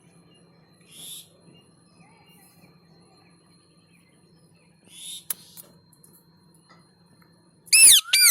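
Pet parrot making two soft hissy sounds, then a loud, sharp call with a gliding pitch near the end.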